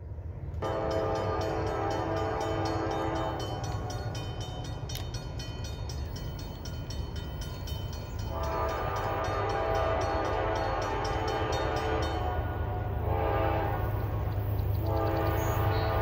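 Horn of a Norfolk Southern GE Dash 9 freight locomotive sounding the grade-crossing signal as the train approaches: two long blasts, a short one, then a long one, over a steady low rumble.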